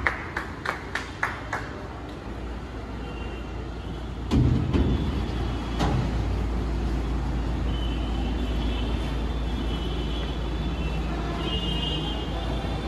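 Scattered hand claps trailing off, then about four seconds in the BMW 330i's 2.0-litre turbocharged four-cylinder starts with a brief flare and settles into a steady idle as the car pulls away.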